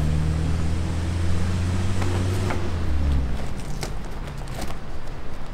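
A low, steady engine drone that drops in pitch and fades out about three seconds in. Over it come a few light clicks and rustles as the liferaft's canopy door is drawn shut with its cord.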